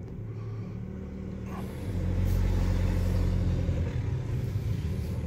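Car engine and road noise heard from inside the cabin while driving slowly: a steady low hum that grows louder about two seconds in.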